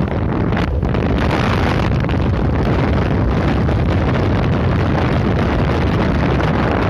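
Wind buffeting the microphone of a camera riding on a moving motorbike: a loud, steady rushing noise that never lets up.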